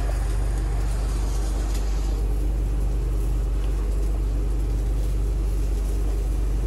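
Steady low hum and rumble of machinery running inside a food truck kitchen, with a faint hiss that fades about two seconds in.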